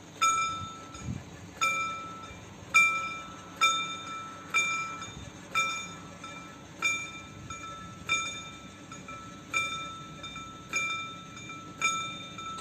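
Level-crossing warning bell striking about once a second, each strike ringing briefly, as the crossing's barriers lower.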